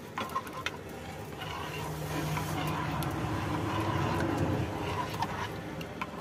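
A vehicle engine running with a low hum, growing louder from about a second and a half in and easing off near the end, with a few light clicks at the start.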